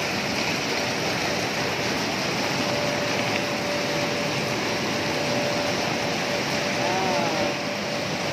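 Steady din of an automated cashew-processing line running, its sorting screens and conveyors going continuously. A steady high whine joins in a few seconds in.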